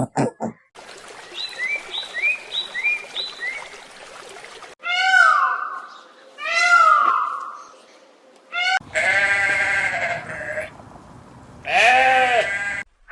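A run of animal calls. First come four short rising chirps over a hissy background. Then two loud drawn-out calls, and near the end a long, bleat-like call followed by a shorter one.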